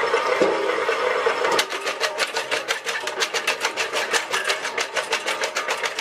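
An engine-driven machine running steadily. About a second and a half in, the sound cuts abruptly to a rapid, even series of sharp clicks, several a second.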